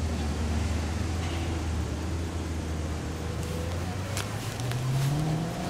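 A low, steady engine drone that rises in pitch near the end, like a motor vehicle speeding up, with a few faint clicks.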